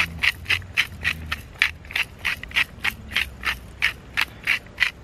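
Hand-twisted salt grinder cranking over fish fillets, a steady run of short gritty crunching clicks, about three or four a second.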